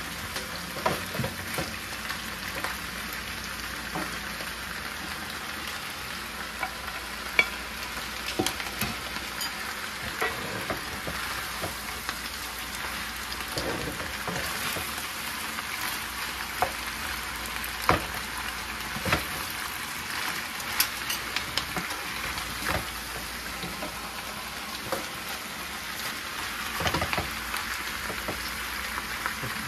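Beef and onions sizzling steadily as they are stir-fried in a hot pan, with irregular sharp clicks of a utensil against the pan as the food is tossed.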